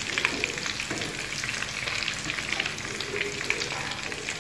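Breaded potato-and-egg kababs shallow-frying in hot oil in a pan: a steady sizzle with scattered crackling pops.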